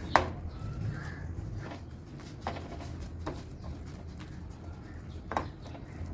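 Hand mixing a thick masala paste of onion, roasted coconut and spice powders in a steel plate: faint rubbing with a few sharp, irregularly spaced clicks of fingers knocking the metal, over a steady low hum.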